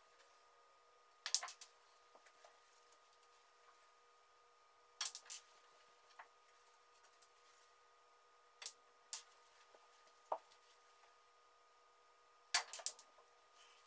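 Snooker balls clicking: sharp clicks of the cue tip on the cue ball and of balls striking each other, in short groups every few seconds as shots are played. A duller knock comes about ten seconds in.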